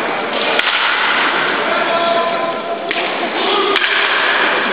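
A baseball bat hitting pitched balls in batting practice: two sharp cracks about three seconds apart, over steady background noise and faint voices.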